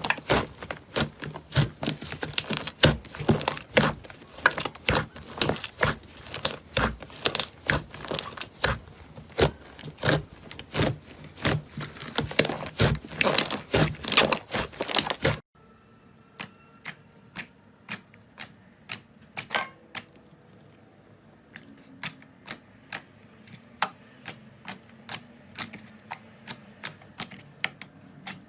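Slime being squeezed and pressed by hand, a dense run of sharp wet clicks and pops. About halfway through the sound cuts to a quieter stretch of sparser, evenly spaced clicks.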